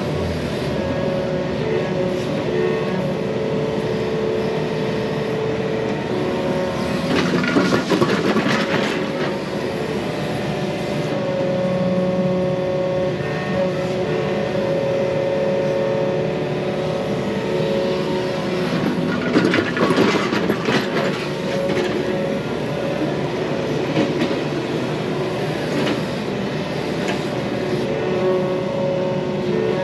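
Mini excavator's diesel engine running steadily under load while it digs through a pond's earthen dam. There are two louder stretches of clattering and scraping, about a third of the way in and again past the middle.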